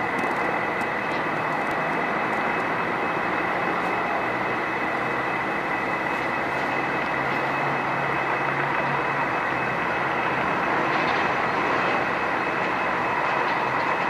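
Airbus A320 jet engines on final approach: a steady roar with a high, even whine over it, swelling slightly as the airliner nears the runway.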